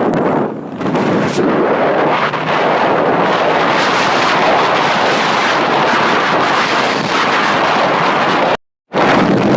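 Loud, steady rushing noise of strong wind buffeting the microphone, cutting out for a moment near the end.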